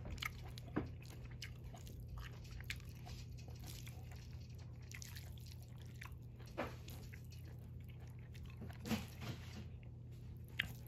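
A person eating stir-fried instant noodles close to the microphone: chewing and mouth sounds with scattered small clicks, over a steady low hum.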